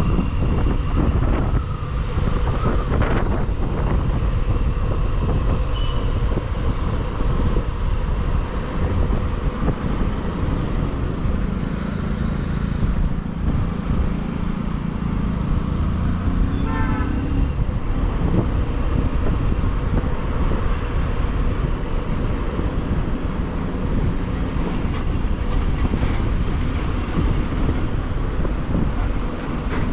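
Motorcycle riding at road speed: a steady engine drone under heavy wind rush and road traffic noise. An engine note holds, then rises about halfway through, alongside a brief run of short high beeps.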